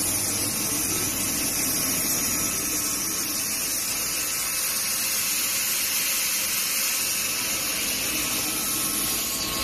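Parallel twin-screw extrusion and strand-pelletizing line running, a steady machine noise with a strong high hiss over a low hum.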